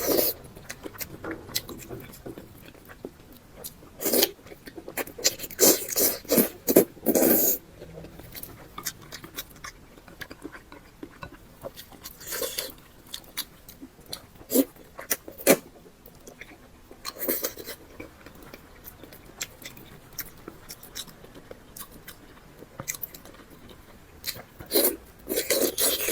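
Close mouth sounds of biting and chewing soft, sticky red-braised beef tendon, coming in irregular clicks and short bursts, with louder clusters several times.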